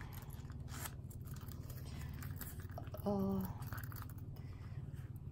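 A Louis Vuitton Zoé wallet of coated canvas and leather is handled and opened, making faint rustles and small clicks. A steady low hum runs underneath. About three seconds in there is a short hummed vocal sound.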